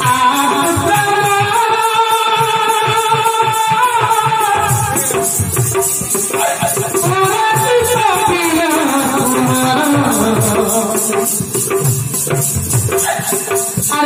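Live folk-theatre music: a melody of long held notes that slide downward about halfway through, over drum beats and a steady percussion rhythm.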